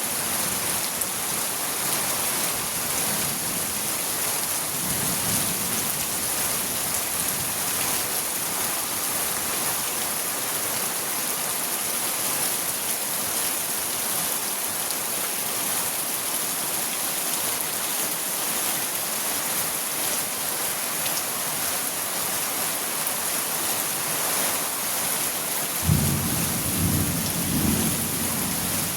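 Steady rain falling, with a sudden low rumble of thunder near the end.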